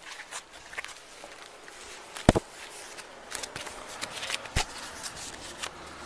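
Rustling and scuffing handling noise with scattered light clicks, and two sharp knocks: the loudest a little over two seconds in, another about four and a half seconds in.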